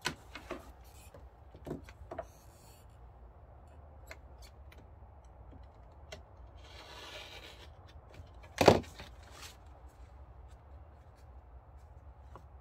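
A rotary cutter slicing a slit through a thin plastic cutting-mat stabilizer piece, with small clicks of handling and a rasping cut of about a second past the middle. A sharp knock follows shortly after, the loudest sound, as something hard is set down.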